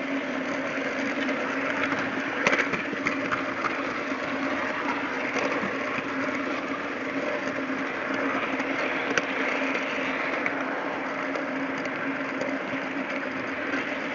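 TT-scale model train rolling along the track, heard from a camera riding on one of its wagons: a steady running rumble and hum with a few sharp clicks scattered through.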